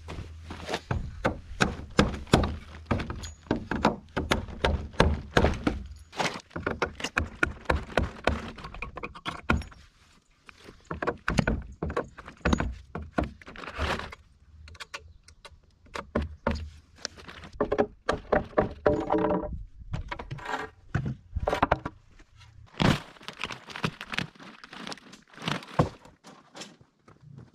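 Repeated sharp knocks of a hand tool striking and prying wooden form boards, in quick runs with a short lull about ten seconds in, as the formwork is knocked loose from a cured concrete footing.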